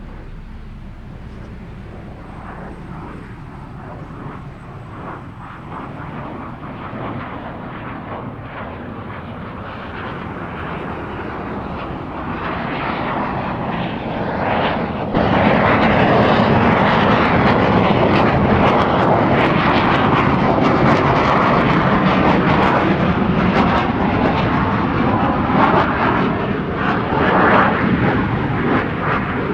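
Military fighter jet's engine in afterburner, growing steadily louder as it approaches, then jumping abruptly louder about fifteen seconds in and holding as a loud, crackling rumble, easing slightly near the end.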